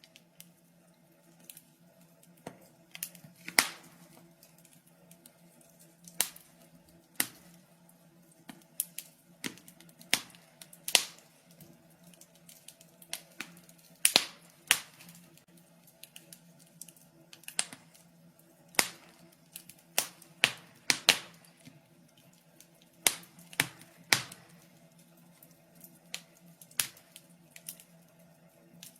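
Wood fire in a fireplace crackling: irregular sharp pops and snaps, some in quick clusters, over a faint steady low hum.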